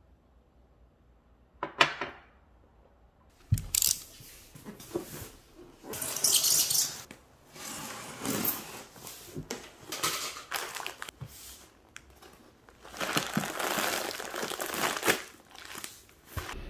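A single sharp click about two seconds in, then a polystyrene foam box being opened by hand. Packing tape is torn and cut, the foam lid is pulled off, and crinkly plastic food packets rustle in irregular bursts.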